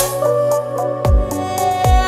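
Background music: a sustained melody over a beat with short high ticks and two deep falling bass hits.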